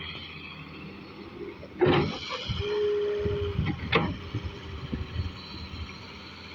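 Daewoo 140 excavator working, its engine running steadily. About two seconds in comes a loud clattering thump, followed by a short steady whine and another clatter about four seconds in.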